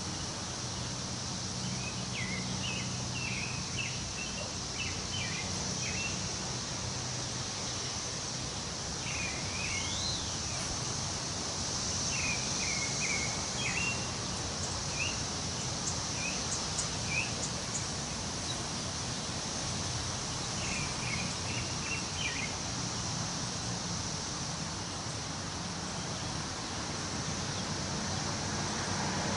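Wind rustling through the leaves of trees, a steady hiss with a low steady hum beneath it. Songbirds chirp in short bursts a few times: near the start, around ten seconds in with one call rising and falling, again a little later, and once more past twenty seconds.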